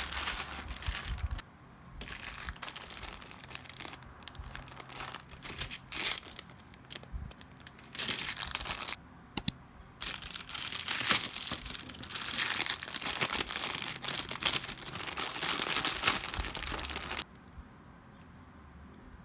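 Plastic packaging crinkling and rustling as a clear plastic bag of crochet hooks is pulled from a poly mailer and handled, with a few sharp clicks. The crinkling stops near the end.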